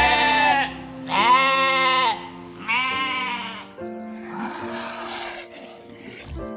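Goat bleating three times, each a loud wavering call about a second long, over background music; a quieter hissing noise follows near the end.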